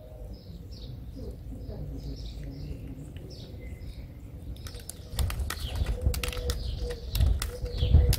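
Small birds chirping steadily in the background. About five seconds in it gets louder, with a quick run of sharp clicks and a low rumble under the chirping.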